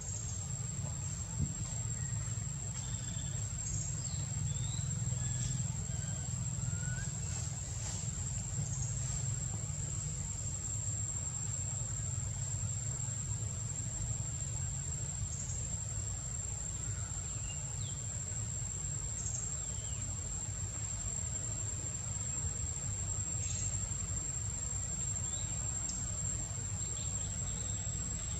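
Insects buzzing in one steady high-pitched tone, over a constant low rumble, with scattered faint short chirps.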